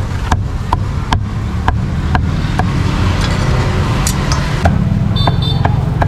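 Steel cleaver chopping roast beef on a thick wooden chopping block: sharp knocks about two a second, with a pause near the middle while the pieces are gathered, over a steady low rumble.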